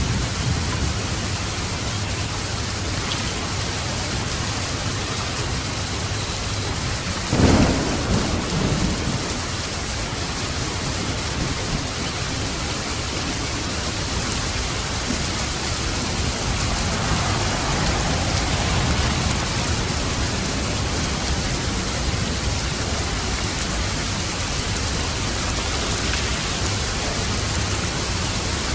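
Steady heavy rain with thunder: a sudden close clap about a quarter of the way through, and a low rolling rumble of thunder later on.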